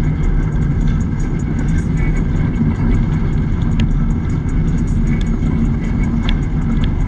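Holden Commodore's engine running steadily as a deep, even drone, with faint light ticks over it.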